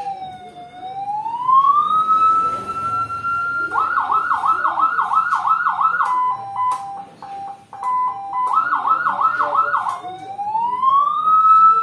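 CJB 200-watt electronic siren module sounding through its speakers and switching between tones. First comes a slow wail that falls and rises. About four seconds in it changes to a fast yelp, then a stepped high-low two-tone, then a short yelp again. Near the end it goes back into a slow rising wail.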